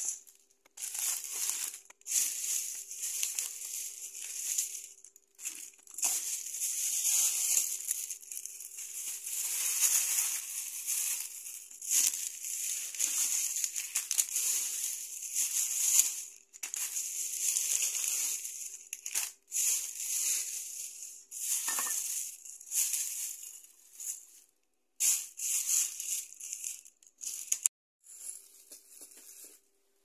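Plastic shopping bags and plastic-wrapped groceries rustling and crinkling as they are handled and unpacked, in irregular bursts with short pauses.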